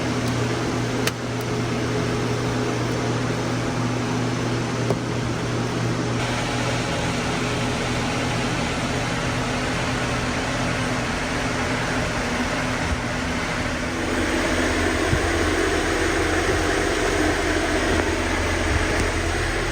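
Electric fans running steadily, a constant whir of moving air over a low motor hum, getting a little louder about two thirds of the way through.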